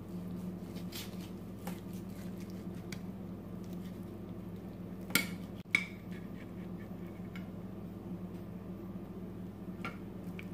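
Carving knife and fork clicking and scraping against a plate while cutting into a whole roast chicken, with two sharper clinks about five seconds in, over a steady low hum.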